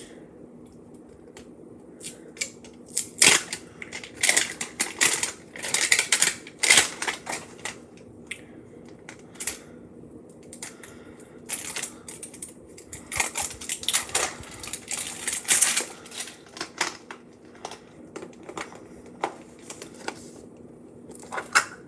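Plastic wrapping crinkling and a plastic Mini Brands capsule ball clicking as it is unwrapped and pulled open by hand, in irregular bursts of crackles with short pauses between.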